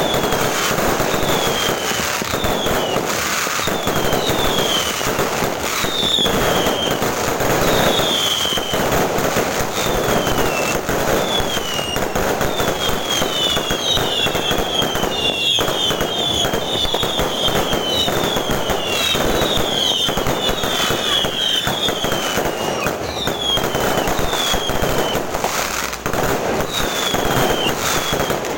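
Fireworks going off without a break: a dense crackle of bursts, with many short whistles falling in pitch, about one a second.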